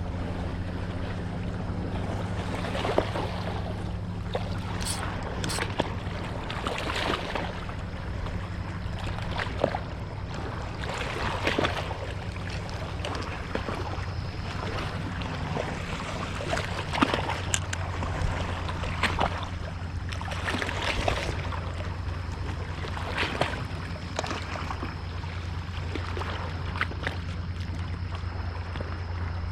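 Steady low motor hum, like a boat's engine running at idle, with water and short knocks or splashes breaking in irregularly every second or two.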